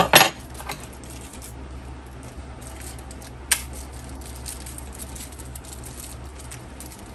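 Metal rack-mount bracket set down on a wooden desk with a short clatter at the start, then light clicks and small handling sounds, with one sharp click about three and a half seconds in.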